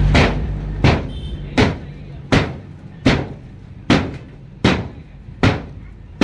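Hammer blows on a refrigerator being broken open for scrap: eight evenly paced strikes, about one every three quarters of a second, each ringing briefly.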